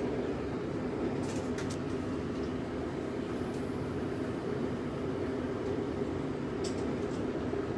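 Steady low mechanical rumble with a few faint clicks, about a second and a half in and again near the end.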